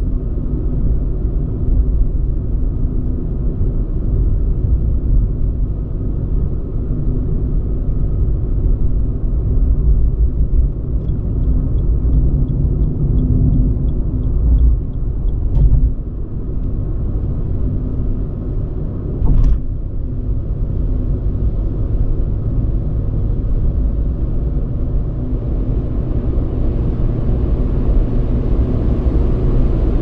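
Car driving at speed with steady low road and engine rumble inside the cabin. A faint regular ticking runs for a few seconds near the middle, and the tyre and wind hiss grows louder near the end.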